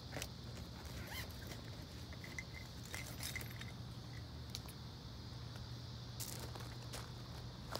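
Faint outdoor background: a steady low hum with scattered small clicks and a few faint chirps about two to three seconds in.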